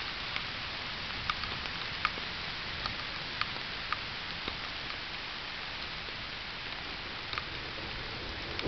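Steady rain falling, heard as an even hiss through a trail camera's microphone, with scattered sharp ticks of drops striking close by, most of them in the first few seconds.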